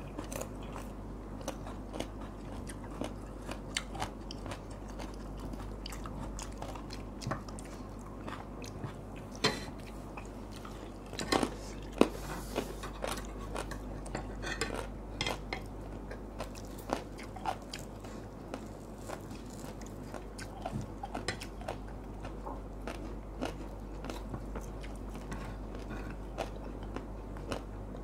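People chewing and crunching crisp food close to the microphone, with scattered sharp crunches and a few light clinks of a spoon on a plate. A steady low hum is heard underneath.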